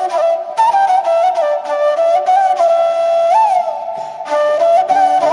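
Background music: a flute playing a melody with small pitch bends, with lower accompaniment coming in near the end.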